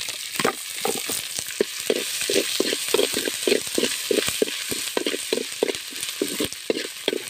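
Ginger-garlic paste and curry leaves sizzling in hot oil in a metal kadai, with a steel ladle scraping and knocking against the pan about three times a second as it stirs.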